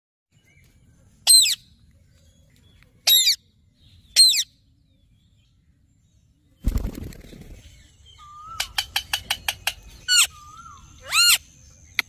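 Rose-ringed parakeet calls: three short, loud, harsh screeches in the first half, then two more near the end. About seven seconds in comes a brief low rushing thump, followed by a run of rapid sharp clicks, about five a second.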